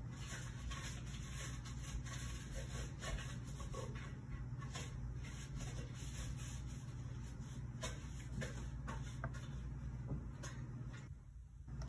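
Steady low hum with light, irregular clicks and taps over it; the hum dips briefly near the end.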